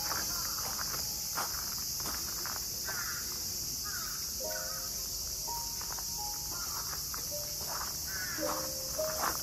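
Cicadas in a steady, high-pitched chorus, with footsteps on a gravel path.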